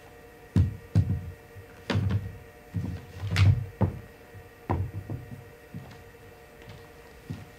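A white slatted chair being handled and set down on a stage floor: a run of knocks and thuds over about five seconds, the loudest around the middle, then quiet handling.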